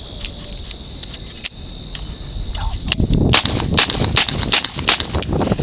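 Smith & Wesson .357 Magnum revolver: a quick run of about seven sharp cracks, two or three a second, starting about three seconds in.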